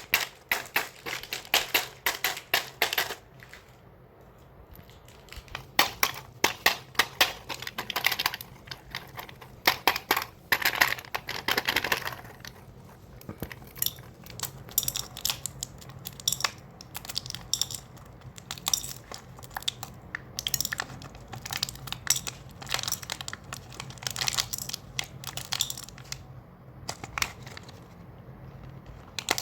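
Candy packets and small hard-shelled candies being handled: bursts of crinkling plastic and quick clicks and rattles, coming in clusters with short pauses between.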